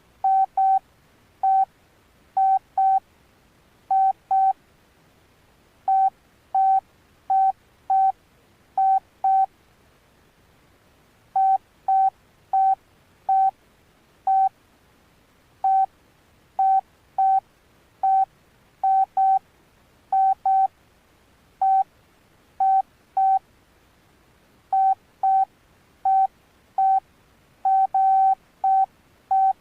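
Alcatel OneTouch Retro 2017B keypad tones: short, same-pitched beeps at irregular intervals, often in quick pairs, as its buttons are pressed one after another.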